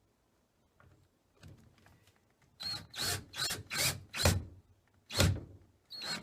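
Hand screwdriver driving a door-hinge screw home clockwise: a run of about six short grating twists, roughly three a second, starting about two and a half seconds in.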